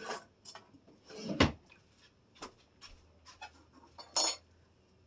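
Scattered clicks and knocks of kitchen things being handled on a countertop. There is a dull thump about a second and a half in, and a sharp clatter near the end as an opened tin can of tomato sauce is picked up.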